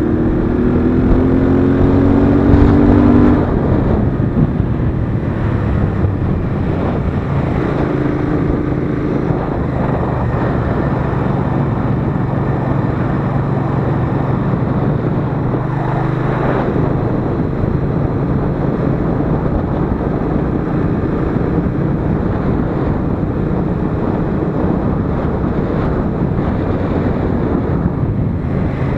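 Royal Enfield Interceptor 650's parallel-twin engine accelerating, its note rising for about the first three seconds, then running at a steady cruise with wind rushing over the microphone.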